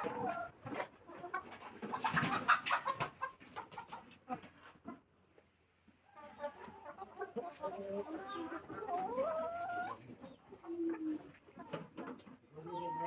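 Chickens clucking and calling, with a rising call about nine seconds in and a brief lull around five seconds in.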